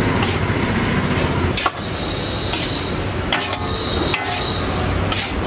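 Metal spatulas scraping and clanking against a large wok as fried rice is stirred and tossed, with several sharp clanks, the loudest about a second and a half in. A steady low rumble runs underneath.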